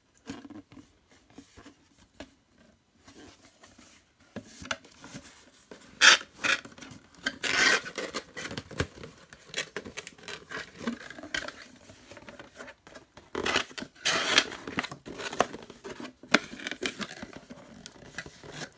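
Unboxing noise from a packaged box and its contents being handled: irregular rustling, scraping and light clicks, with louder rustling stretches about six to eight seconds in and again around fourteen seconds.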